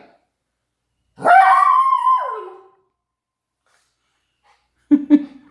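Dog giving one long howling bark, about a second and a half, that drops in pitch as it tails off. A few short low sounds follow near the end.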